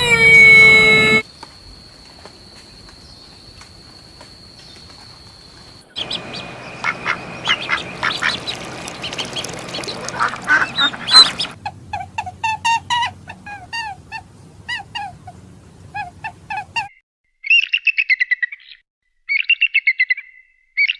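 Ducks quacking and birds chirping, in a run of short clips that cut abruptly from one to the next. The last few seconds hold rapid trains of high chirps.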